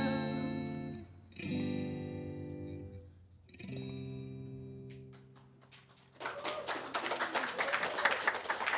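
Guitar playing the closing chords of a song, each let ring and fading, with fresh chords struck about a second and three and a half seconds in. From about six seconds in, an audience claps.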